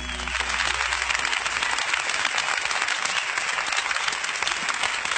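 Audience applauding steadily, a dense patter of many hands clapping, starting just as the song's last note dies away.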